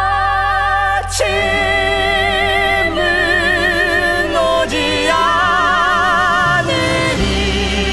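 A musical-theatre ballad: singing voices in long held notes with wide vibrato, moving to a new note every second or two, over a steady low accompaniment.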